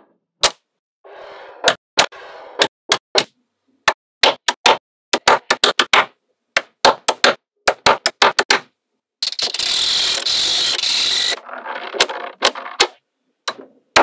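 Small magnetic balls snapping together, quick sharp clicks in irregular runs. About two-thirds of the way through, a loud steady hiss of rushing noise lasts about two seconds.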